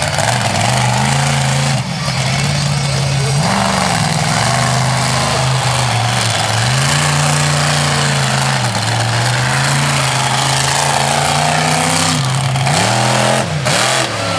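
Monster truck engine revving hard, its pitch climbing and dropping several times as the throttle is worked, over a dense noisy roar.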